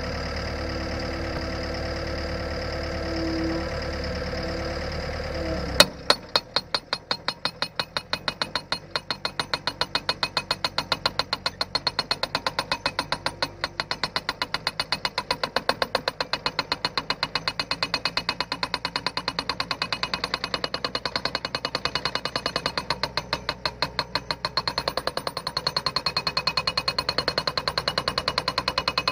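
Skid-steer engine idling steadily, then about six seconds in the hydraulic Montana post driver starts pounding a wooden fence post: one loud first strike followed by a rapid, evenly spaced run of hammer blows that keeps going.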